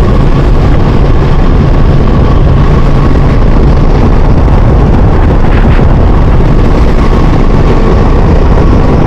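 Ducati Multistrada V4S's V4 engine running steadily at road speed, heard from the rider's microphone with wind noise mixed in.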